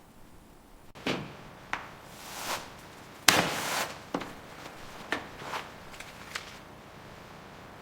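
Wooden door and frame being handled during installation: a series of wooden knocks and bumps, with a short scrape before the loudest bang about three seconds in, and a brief rasp right after that bang.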